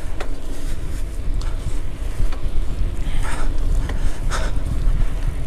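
Wind buffeting the microphone with tyre rumble on wet asphalt from a mountain bike coasting downhill at speed, broken by a few short clicks and rattles.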